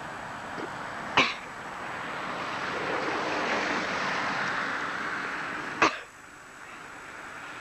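An electric train passing, a broad rushing noise that swells and then drops away suddenly, with two sharp clicks, one about a second in and one near the end, on an old camcorder recording.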